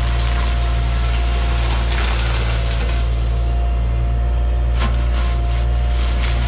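Cat 303.5 mini excavator's diesel engine running steadily under load with a steady high whine, while its bucket scrapes and digs through gravel stone, giving a few short crunching scrapes.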